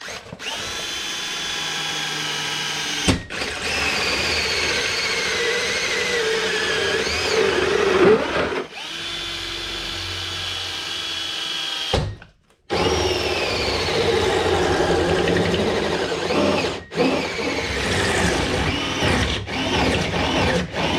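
Power drill running in several runs, its motor whine steady at times and rising and falling with the trigger, stopping briefly about 3 s in, for about half a second about 12 s in, and again about 17 s in; it is likely spinning out the seat-mount bolts.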